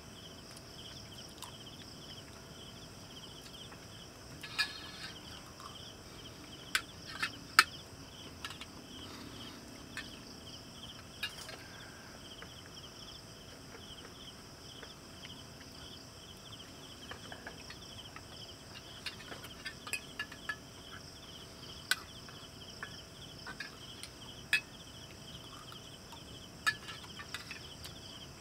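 Crickets chirping steadily at night, with scattered sharp clinks of spoons on metal plates as people eat.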